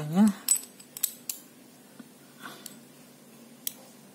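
Light metallic clicks and clinks from a small steel hole saw being fitted and threaded onto its drill arbor by hand. Several clicks are bunched in the first second and a half, and one more comes about three and a half seconds in.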